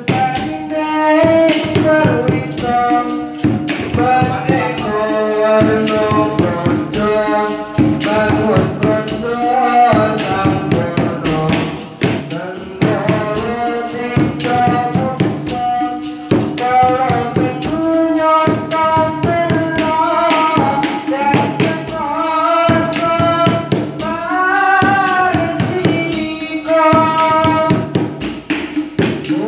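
Sholawat devotional singing: a young man's solo voice sings an ornamented, bending melody over a steady rhythm of hand-struck frame drums (rebana).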